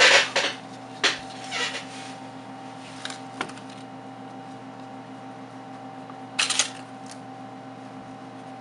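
Paper alcohol wipe sachet being torn open and crinkled by hand, with a few short rustles in the first two seconds, another couple around three seconds in and a pair about six and a half seconds in. A steady low hum runs underneath.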